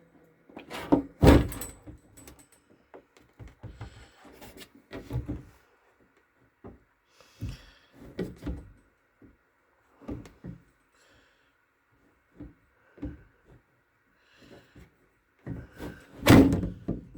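Handling noises of parts and tools being worked on: irregular knocks, clunks and rattles, with the loudest thuds about a second in and near the end.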